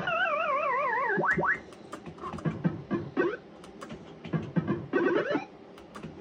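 Barcrest Pac-Man fruit machine's electronic sound effects: a warbling tone that wavers downward for about a second, then quick rising chirps and sharp clicks while the reels spin.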